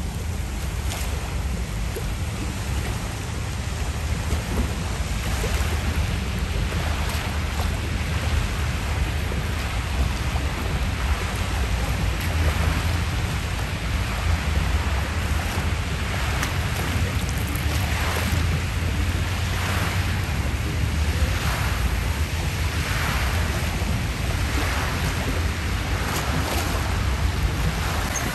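Wind buffeting the microphone as a steady low rumble, over lake water splashing and lapping. In the second half the splashes come in swells about every one and a half to two seconds.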